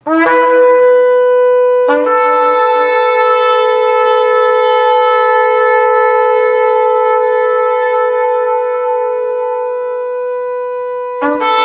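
Shofar blown in long blasts: a short opening note, then one steady note held for about nine seconds and slowly fading, and a fresh blast starting near the end.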